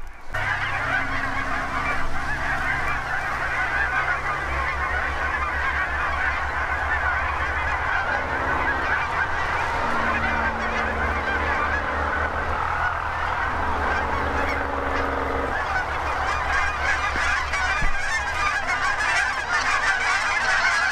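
A large flock of Canada geese flying overhead, many birds honking at once in a dense, continuous chorus, with a low steady hum underneath.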